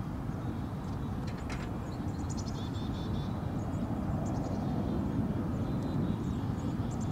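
Airbus A350-900 airliner on final approach, its Rolls-Royce Trent XWB engines a low, distant rumble that slowly grows louder as it nears.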